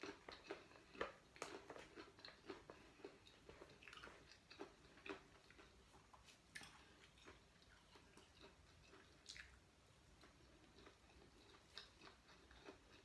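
Faint chewing of a mouthful of sticky rice with fermented-fish dip, with small, irregular wet mouth clicks and lip smacks.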